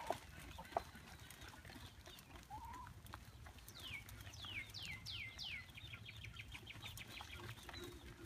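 Backyard chickens clucking faintly, and a songbird singing a few descending whistled notes that run into a fast trill.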